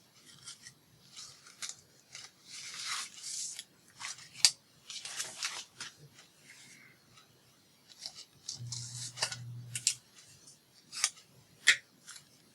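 Paper being handled and rubbed, with short scraping strokes and a few sharp snips or clicks, like scissors on paper. A brief low hum comes in about nine seconds in.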